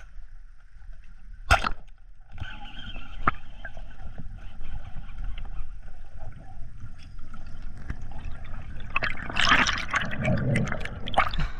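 Underwater, a speargun fires with one sharp crack about one and a half seconds in. Muffled underwater rumble follows, then near the end a burst of bubbling and gurgling as the diver rises toward the surface.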